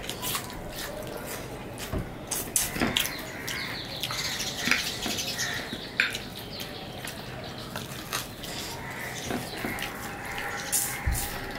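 Close-up eating sounds: wet chewing and lip smacking as two people eat rice and curry with their hands, with fingers squelching through rice and gravy on the plates. The sounds come as frequent sharp wet clicks and smacks.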